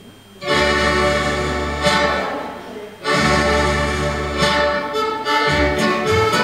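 Scottish country dance music: two long held chords, the opening chords on which the dancers bow and curtsy, then the tune starts in a steady dance rhythm about four seconds in.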